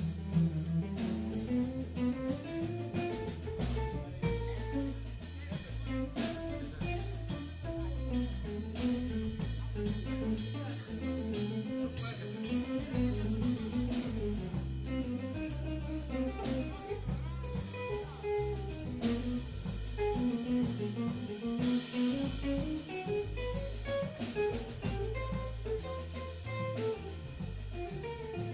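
Live jazz trio of guitar, bass guitar and drum kit playing: a guitar melody winding up and down over bass notes and steady drums and cymbals.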